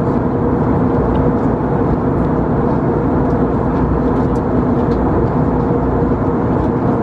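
Airbus A321neo cabin noise in flight: a steady roar of engines and airflow, with an even two-note hum running through it.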